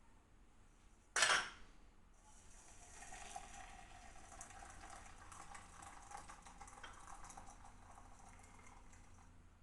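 Kitchen sounds: a short loud clatter about a second in, then a steady crackling hiss with small ticks that runs until just before the end.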